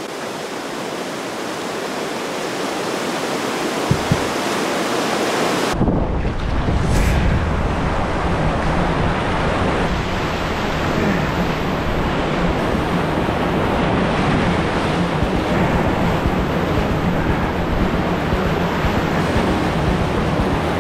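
Whitewater rapids rushing over rocks. About six seconds in, the sound changes to the canoe running the rapid: waves crashing close around the boat and wind rumbling on the microphone, louder and deeper than before.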